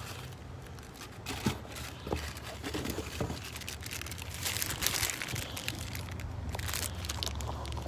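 Crinkling and rustling of plastic packaging with scattered light clicks, as a new timing chain guide is handled, densest about halfway through and again near the end, over a steady low hum.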